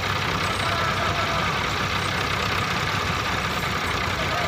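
Diesel tractor engines idling steadily, an even low rumble with no revving.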